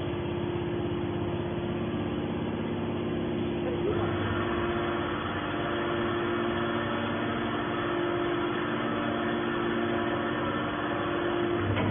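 Hydraulic scrap baler's motor and pump running with a steady hum. About four seconds in, a rougher, fuller noise joins it and carries on.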